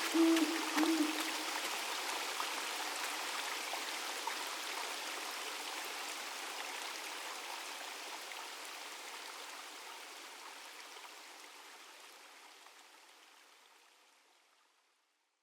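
Running water of a stream or waterfall, an even rushing that fades out slowly to silence near the end. A brief low tone and a few light clicks sound in the first second or so.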